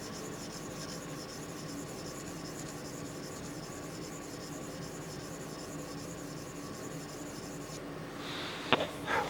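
Abrasive sharpening stone stroked repeatedly along a knife's edge in a guided angle sharpener, a dry rhythmic scraping. A few sharp clicks near the end.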